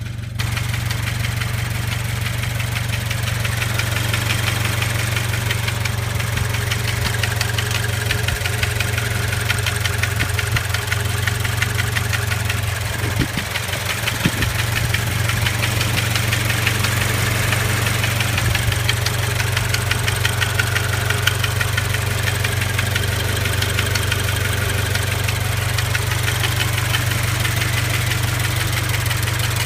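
Warmed-up 2.0-litre FA20 flat-four engine of a Toyota 86 / Subaru BRZ / Scion FR-S running steadily with a fast metallic rattle over its hum. The rattle came from a failing engine-driven brake vacuum pump, which was later replaced.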